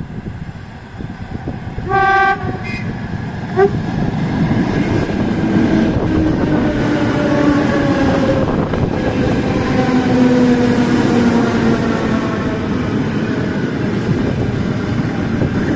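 ET2M electric multiple unit sounds a short horn blast about two seconds in, with a brief second toot right after. It then runs past close by, its wheels and motors making a loud steady rumble with whining tones that slide down in pitch as the carriages go by.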